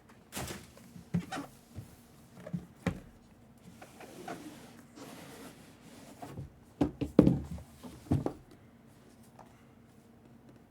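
Scattered knocks, taps and rustling of a packaged jersey being handled and its wrapping opened, loudest about seven seconds in.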